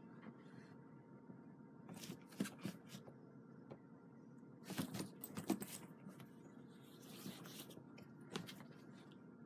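Cats scuffling and wrestling in a soft fabric pet carrier: short spells of scratching and scraping against the fabric, about two seconds in, around five seconds in and again near the end, with a low room hum between.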